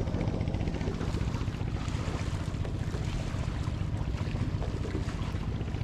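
Steady low engine rumble with rapid, even pulsing, typical of a boat motor running on the river, mixed with wind on the microphone.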